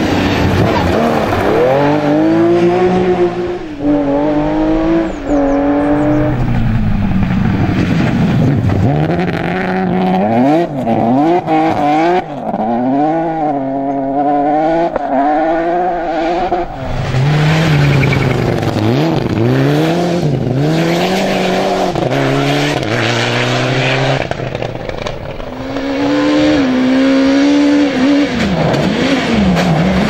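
Several rally cars at full throttle, one after another, starting with a classic Porsche 911's air-cooled flat-six. The engines rev up and drop again and again through gear changes and lifts for corners, with short lulls between cars.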